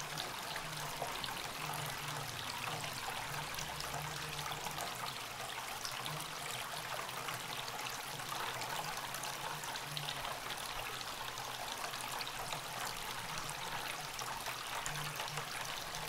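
Tabletop pebble fountain running: water trickles and splashes steadily down a cone of stacked stones into a bowl, with a faint low hum underneath.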